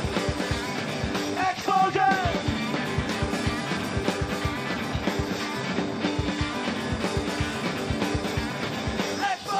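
Live garage blues-rock band playing loud, with distorted electric guitars and pounding drums. The music breaks briefly about a second and a half in and again near the end, and a wavering high note sounds over each break.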